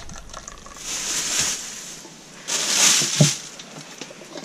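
Plastic bags rustling and crinkling as they are handled, in two bursts of about a second each.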